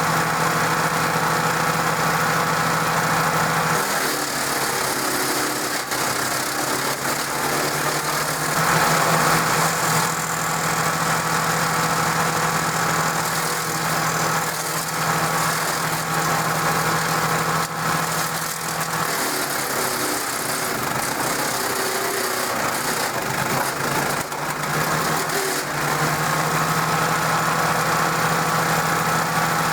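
Briggs & Stratton engine of a DR self-feeding wood chipper running steadily. Its even hum turns rough and uneven for several seconds about four seconds in, and again in the second half.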